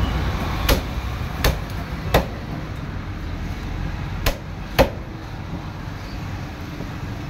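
A cleaver-like fish knife chopping rohu fish into pieces on a wooden log chopping block: five sharp chops, three in the first two seconds and two more a little past the middle.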